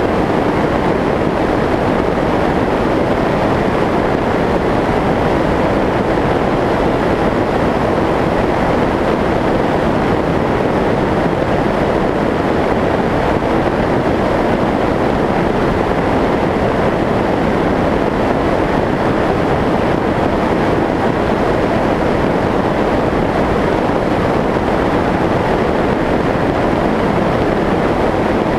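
Onboard sound of a Skyshadow S800 FPV flying wing in steady cruise: a constant rush of airflow over the camera, mixed with the drone of its electric pusher propeller.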